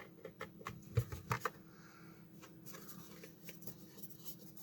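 Light clicks and taps of hands handling a small plastic electronic device being taken apart, several close together in the first second and a half, then sparser, over a faint steady hum.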